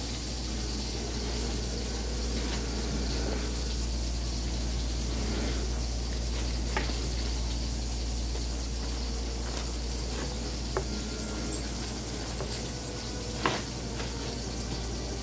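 A knife slicing through a block of cheddar cheese and tapping sharply on a plastic cutting mat a few times, the loudest tap near the end, over a steady sizzle-like hiss.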